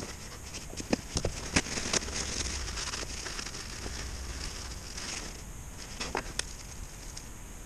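Hands at work on a differential's pinion flange: a shop rag rubbing and nitrile gloves rustling, with scattered light clicks and knocks from parts and tools being handled, a cluster about a second in and two more near the six-second mark.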